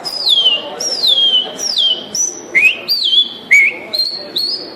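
A man whistling an imitation of the male bicudo's (great-billed seed finch's) song, the bird's answer to the female's call when in full song: a string of clear whistled notes at about two a second, most sliding down in pitch, some rising first and then falling.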